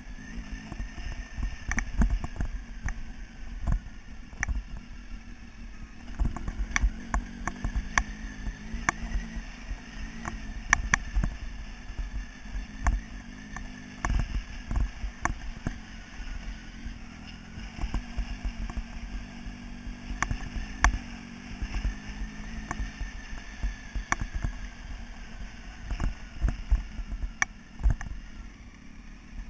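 Motorcycle engine running at modest speed on a loose gravel track, its pitch slowly rising and falling, with frequent sharp knocks and clatter from the rough ride over a heavy low rumble.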